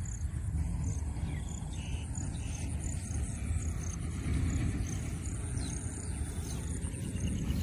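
Wind buffeting the microphone as a steady low rumble in open country, with short high chirps repeating evenly over it, a few times a second.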